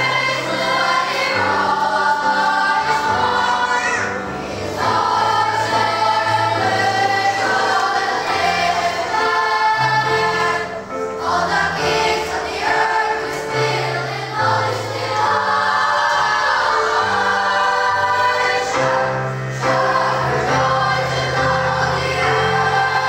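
Children's choir singing in parts, with low sustained notes underneath and brief breaks between phrases.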